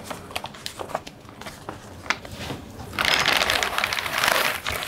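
Packing wrap and a cardboard box being handled during unboxing: scattered rustles and clicks, then loud, continuous crinkling of the wrapping from about three seconds in.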